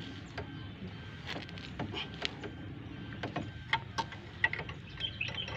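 Spanner working a bolt on a car's front wheel hub: scattered metallic clicks and taps, irregularly spaced, over a steady low hum.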